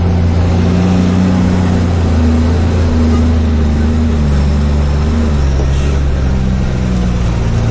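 Truck's diesel engine running at low speed, heard from inside the cab; its note drops lower about four to five seconds in.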